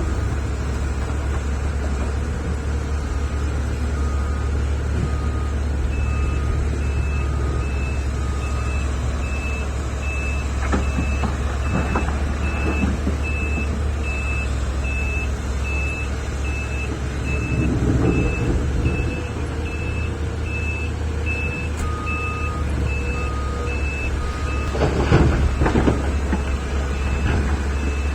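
Heavy diesel earthmoving machinery running steadily, with a reversing alarm beeping at an even pace, about one beep a second, from about six seconds in. A few short noisy bursts come on top, the loudest near the end.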